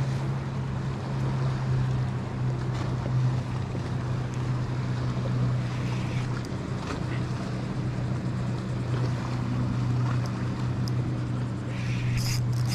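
Steady low hum of a motorboat engine running, with wind and water noise around the kayak. A short high-pitched whir comes near the end.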